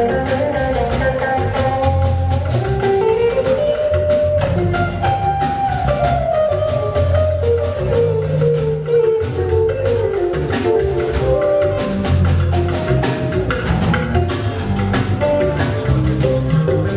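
Instrumental band music: a melodic lead line over a repeating bass line and busy, steady percussion, with no singing.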